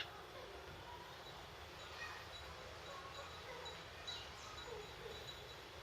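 Faint short calls of a young wild sirtu bird, with a couple of quick falling chirps about four seconds in, over a steady background hiss. A single click at the very start.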